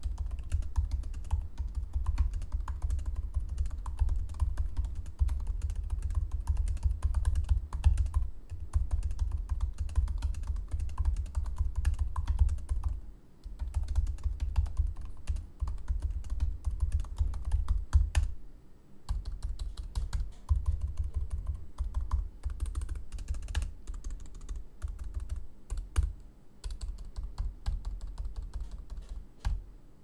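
Continuous typing on an M1 MacBook Air's built-in scissor-switch Magic Keyboard: a rapid, unbroken run of key taps, with two brief pauses in the middle.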